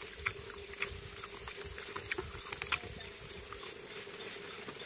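Small irregular clicks, smacks and ticks of eating by hand, chewing chicken and handling rice on a plate, over a faint steady hum.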